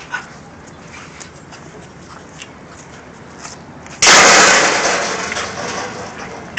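A sudden loud rush of noise about four seconds in, fading away over about two seconds, after a few quiet seconds.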